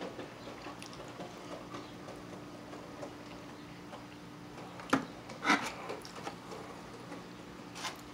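Eating at close range: a plastic fork scrapes and taps in a foam takeout container, with mouth and chewing noises. Two louder sharp clicks come about five seconds in and another near the end, over a low steady hum.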